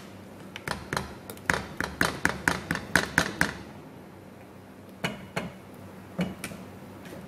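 A quick run of light taps and clicks, about three or four a second, then a few single clicks later on: a clear plastic lid being tapped over a saucepan to knock stuck corn kernels into simmering coconut milk.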